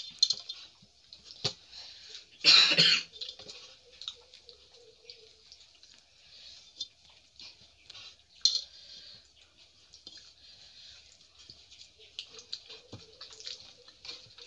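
Eating by hand: fingers squishing rice and curry on steel plates, with wet mouth clicks and chewing throughout. About two and a half seconds in there is one short, loud sound.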